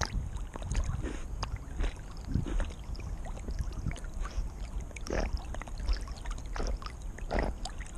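Water sloshing and splashing close up around a dog swimming and paddling, heard from a camera mounted on its back, over a steady low rumble. There are irregular splashes, with louder ones about five seconds in and again near the end.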